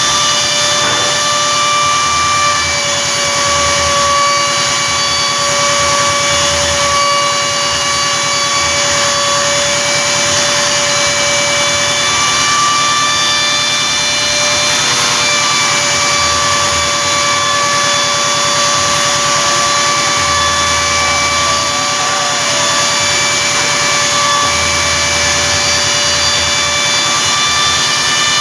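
CNC router spindle engraving 3 mm acrylic with a 6 mm end mill: a steady high whine over the hiss of the bit cutting, with a lower hum that comes and goes.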